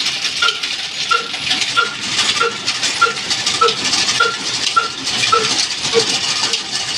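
Old diesel engine and its belt-driven line shaft, pulleys and bandsaw running steadily: a dense metallic rattle with a short chirp repeating a little under twice a second.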